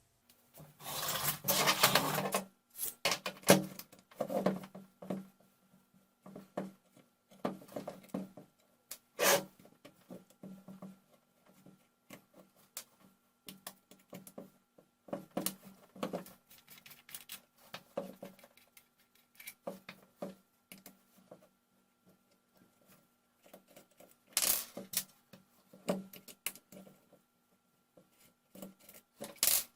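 Intermittent small clicks, taps and rustles from handling a Dremel 3000 rotary tool's plastic housing as it is taken apart by hand, with a faint steady hum underneath.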